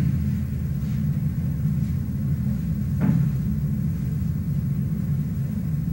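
Steady low rumble and hum of room noise, with a faint click about three seconds in.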